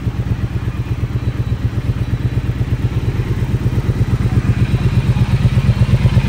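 Triumph Speed Twin 1200's 270-degree parallel-twin engine idling through a Zard full-system exhaust: a steady, even low pulsing that grows a little louder over the last couple of seconds.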